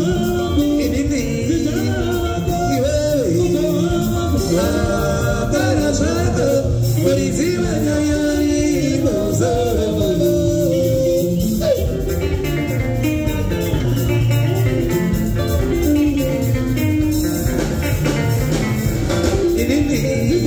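Live sungura band playing: voices singing over electric guitars and drums at a steady pace.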